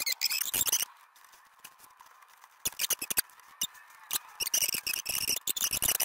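Screwdriver tightening the ground screw on an electrical receptacle: high-pitched scratchy scraping in short spells, in the first second and again through the last second and a half, with a few clicks in between.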